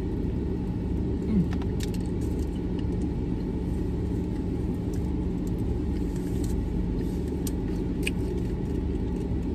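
Steady low hum of a parked car idling, heard from inside the cabin, with a few faint clicks of chewing.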